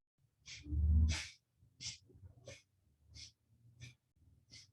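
A woman's rapid, forceful breathing, quick inhales and exhales about every two-thirds of a second, paced to Kundalini twisting with a breath-of-fire rhythm. The breath about a second in is the loudest.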